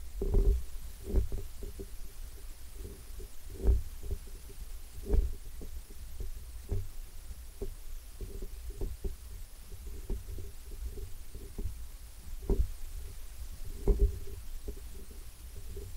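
Handling noise from a carried camera: a low rumble with irregular dull thumps, roughly one every second or two, as it is walked along.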